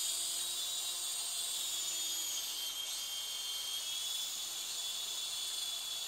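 WL Toys V913 electric RC helicopter's motor and rotors giving a steady high-pitched whine as it flies, the pitch wavering slightly about three seconds in.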